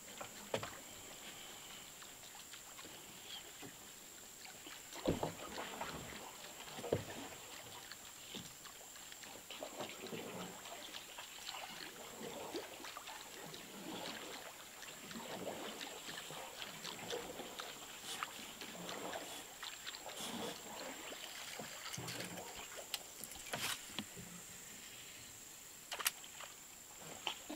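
Quiet ambience aboard a small boat on calm water: faint water movement around the hull, with a few sharp knocks on the boat.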